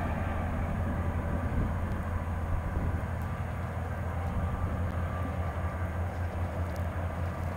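Four-unit BNSF diesel lashup of two GE C44-9W and two EMD SD40-2 locomotives pulling a freight train up a grade: a steady low engine drone under load, with the rumble of the passing train.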